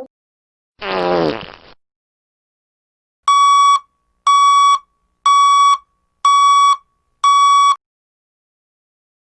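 Sound-effect clips from a soundboard: a short raspy sound sliding down in pitch, then five identical electronic beeps about a second apart.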